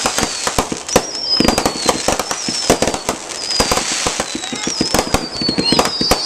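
Fireworks barrage going off: a rapid, continuous run of bangs and crackles, with several high whistles sliding down in pitch.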